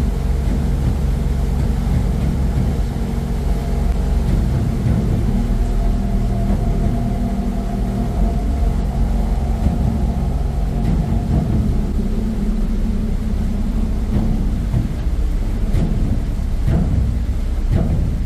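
Harbour ferry's diesel engine running steadily under way, a loud low drone heard from the open deck. A fainter higher hum runs with it through the middle.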